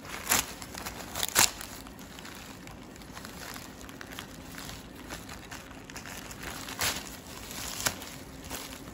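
Plastic courier mailer bag crinkling and rustling as it is torn open by hand, with a few sharp crackles, two near the start and two near the end.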